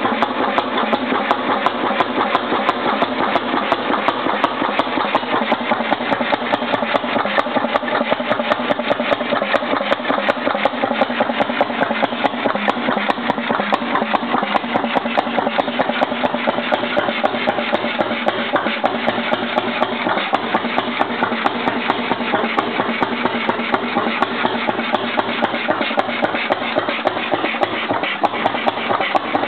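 1909 Cady 3 hp two-stroke stationary engine with a single air-cooled cylinder, running steadily. Its firing strokes come as an even, rapid train of pulses that holds the same pace and level throughout.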